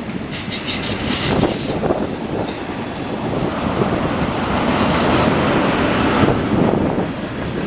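Canadian National freight train rolling past on the rails, with a high wheel squeal between about one and five seconds in.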